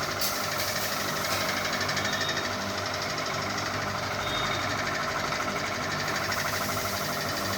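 Ceiling fan running with a fast, steady rattling knock.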